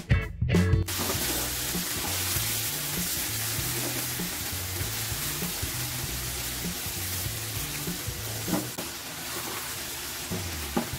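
Marinated fish pieces frying in hot oil in a pan: a steady, dense sizzle that starts about a second in, over background music with a bass line. Near the end a couple of short scrapes from the spatula turning the fish.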